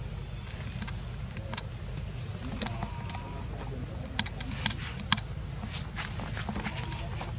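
Scattered sharp clicks and crackles of dry leaves and twigs as a young monkey moves about on the ground, over a steady low rumble.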